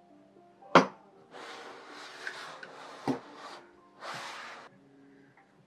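Paper and plastic packaging rustling as items are handled and set down on a wooden box, with a sharp knock about a second in and a second knock in the middle of the rustling; quiet background music underneath.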